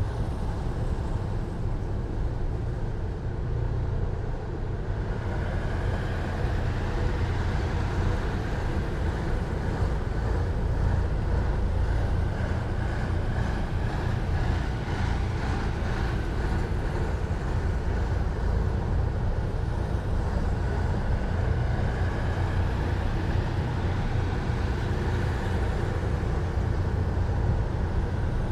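Column of heavy military vehicles driving past with a steady, deep engine rumble. A faint higher whine joins in about five seconds in.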